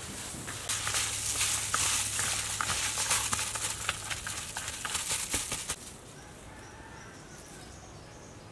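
Wet food being mixed by hand in a plastic bowl: squelching and crackly rustling with many small clicks, stopping about six seconds in. Faint bird chirps after it stops.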